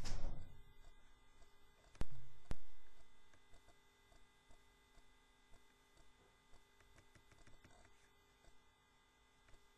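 Steady electrical hum made of several fixed tones, with a knock right at the start and two sharp clicks about two seconds in, half a second apart.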